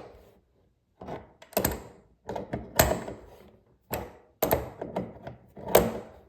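Irregular sharp clicks and knocks, about seven of them, from faucet parts and hand tools being handled and fitted during a faucet stem repair.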